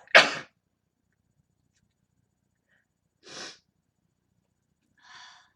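A woman sneezes once: a sudden, loud, sharp burst right at the start. It is followed by two much quieter short breaths, about three and five seconds in.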